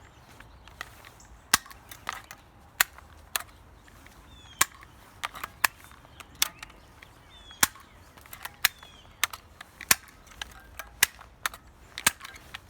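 A stapler being fired again and again, shooting staples: sharp snaps at uneven intervals, roughly one to two a second.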